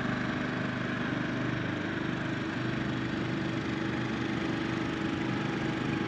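Engine idling steadily, a low hum that holds one pitch throughout.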